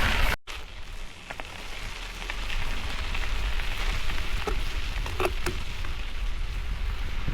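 Tyres rolling over gravel and wind rumbling on a bike-mounted camera while riding a gravel road, with a few light clicks and rattles. The sound cuts out sharply about half a second in, then builds back up over the next two seconds.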